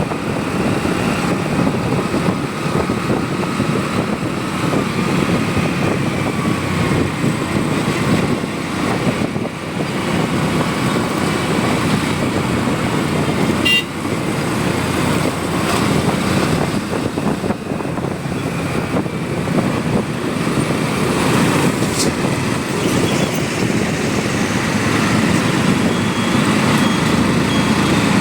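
Steady road and engine rumble heard from a motorcycle on the move through traffic, with a few faint horn-like tones from passing vehicles.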